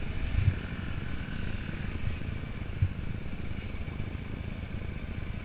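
Motocross motorcycle engines running, with a steady rumble and two dull thumps, one about half a second in and one near three seconds.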